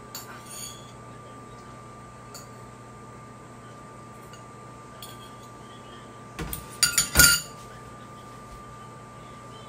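Chopsticks and a ceramic bowl and plate clinking as food is scraped from the bowl onto the plate. There are light, scattered clinks, then a quick run of louder clinks and knocks about six and a half to seven and a half seconds in, with a faint steady high tone underneath.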